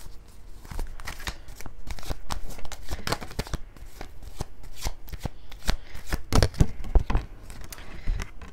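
A deck of tarot cards being shuffled by hand: a quick, uneven run of card slaps and flicks starting about a second in.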